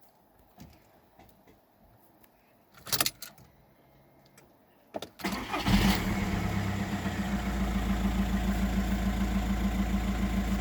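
A few faint clicks and a short knock, then about halfway through a VW 1.9 TDI diesel engine cranks briefly, catches and settles into a steady, evenly pulsing idle. It starts now that the crankshaft speed sensor (G28) wiring has been repaired.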